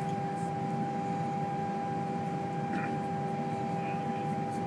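Steady hum of the Boeing 787 cabin's air-conditioning and ventilation, a low rush with a few steady whining tones running through it.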